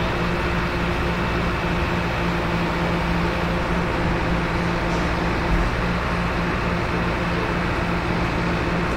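Excavator's diesel engine running steadily, a constant hum with a low, even drone.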